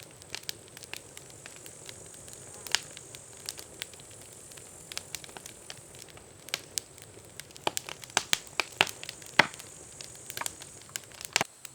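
Wood campfire crackling: irregular sharp pops and snaps over a low hiss, coming thicker in the second half.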